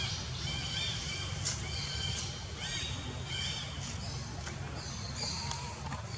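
Birds calling: short, high, arched chirps repeated over and over, over a steady low rumble.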